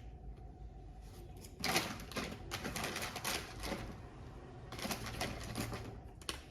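Two spells of rapid, scratchy clicking and rubbing on the plastic of a computer mouse while it is being cleaned. The first lasts about two seconds, the second about one second near the end.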